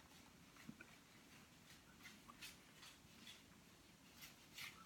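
Near silence: room tone with a few faint, short ticks.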